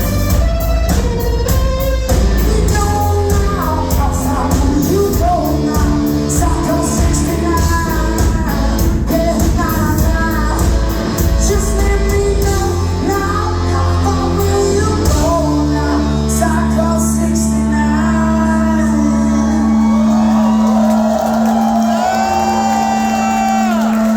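Live rock band playing loud in a hall: electric guitar and pounding drums with shouted singing. About fifteen seconds in the drums drop out and a held guitar chord rings on under wavering high sung notes, as the song winds to its close.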